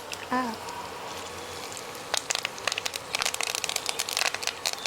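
Tempering crackling in hot oil: mustard seeds popping and freshly added curry leaves sputtering, a dense run of sharp pops over a steady sizzle. The pops get thicker about two seconds in.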